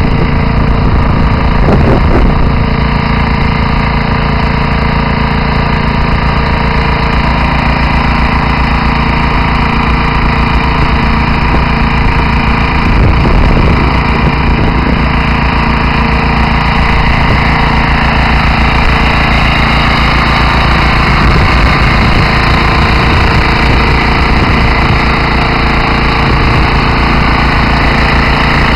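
The diesel engine of a vacuum slurry pump unit runs steadily while the pump is working, discharging water.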